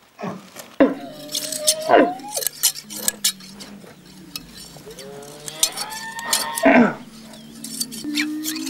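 A camel held down for shearing makes long, drawn-out calls that rise in pitch, twice, then a lower steady call near the end. Sharp metallic clicks of hand shears snipping its wool come through between the calls.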